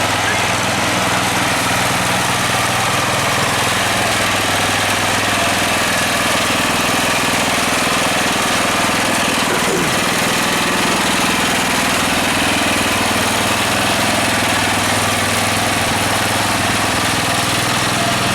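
Garden tractor engine running steadily at an even speed, with a constant low hum.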